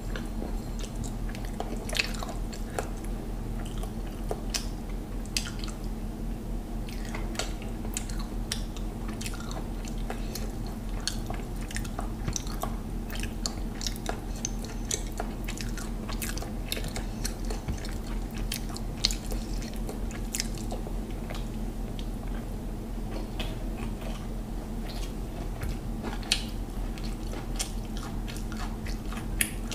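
Close-miked sounds of a person eating mutton biryani with rice: chewing with many short wet mouth clicks and smacks, and a few louder clicks here and there. A steady low hum runs underneath.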